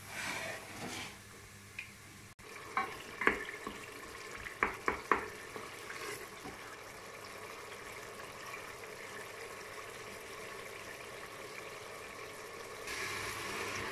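Water sizzling and bubbling on browned onions in a steel pressure cooker, stirred with a wooden spoon that knocks sharply against the pot a few times about three to five seconds in.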